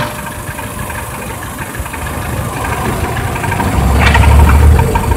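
Peugeot 307 petrol engine running at idle, presented as making an abnormal noise. It grows louder and deeper for about a second, around four seconds in.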